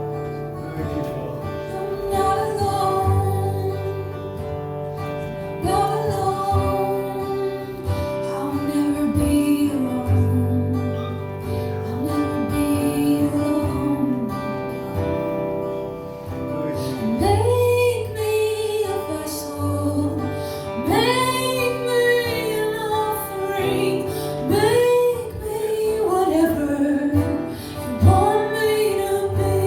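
A woman singing a slow spontaneous worship melody in long, gliding held notes, accompanied by acoustic guitar.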